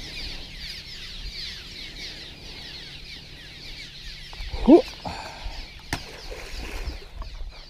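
A flock of small birds chattering continuously with many quick high chirps. Just under five seconds in comes one short, louder rising squeal.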